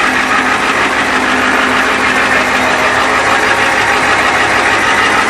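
1993 Ford F-450 Super Duty's engine idling steadily.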